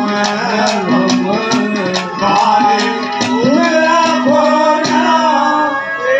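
Haryanvi ragni folk music: a gliding melody over a steady drone, with regular drum strokes keeping the beat.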